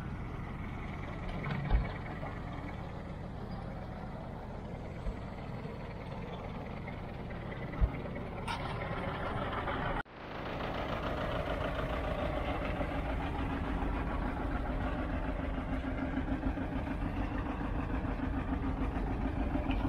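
Antique farm tractor engines idling, with a couple of sharp knocks in the first half. About halfway through, the sound cuts and a closer engine chugs steadily.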